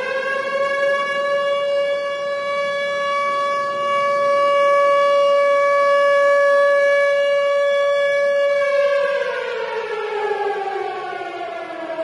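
Tornado siren wailing: its pitch climbs to one long, steady tone held for about eight seconds, then slides down near the end.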